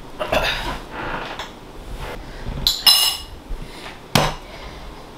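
Roasted spices and grated coconut poured from a bowl into a glass blender jar, rattling and scraping in. A ringing clink of glass follows near the middle, then a single sharp knock about four seconds in as the lid is pressed onto the jar; the blender motor is not running.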